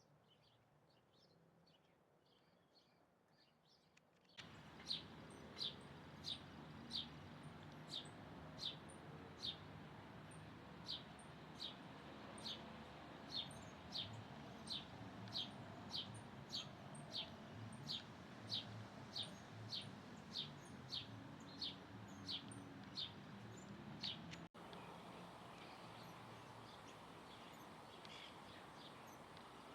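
A bird repeating one short, high call over and over, a little more than once a second, over a steady low background hiss. The calls stop suddenly about 25 seconds in, leaving fainter scattered chirps.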